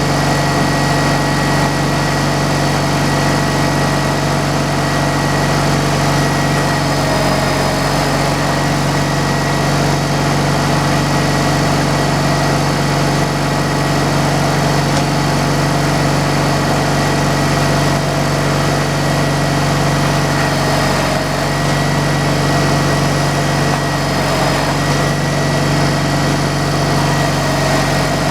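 Sawmill engine running steadily at an even speed, with a steady high whine over the engine note.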